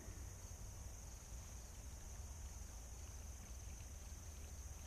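Faint, steady high-pitched insect chorus, with a low rumble underneath.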